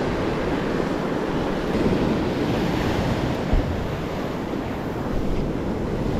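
Shallow surf washing and foaming over sand and reef, with wind buffeting the microphone and a brief low thump about three and a half seconds in.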